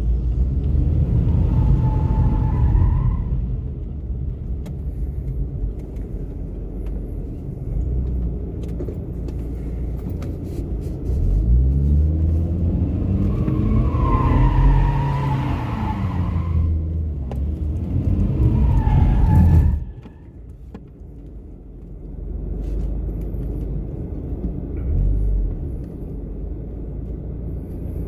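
Car engine revving up and falling back, with tyres squealing in short wavering bursts near the start, around the middle and again just before the engine sound drops off abruptly about two-thirds of the way through.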